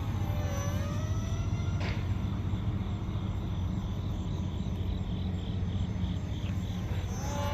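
Electric motor and propeller of a small foam RC F-22 Raptor model plane whirring in flight, its pitch gliding up and down with throttle changes near the start and again near the end, over a steady low hum.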